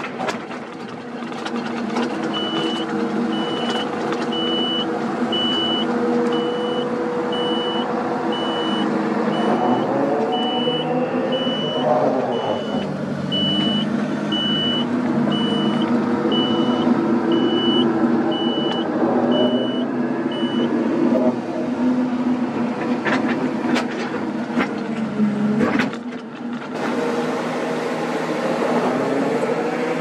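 Kobelco SK200 excavator's diesel engine running under working load, its pitch rising and falling as the hydraulics dig and swing. A warning beeper sounds about once a second through the first two-thirds, and a few knocks come near the end.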